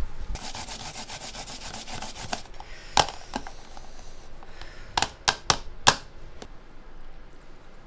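Fresh ginger root being grated on a metal grater in a plastic frame: about two seconds of fast rasping strokes, then a handful of sharp knocks as the grater is tapped against the plastic tub.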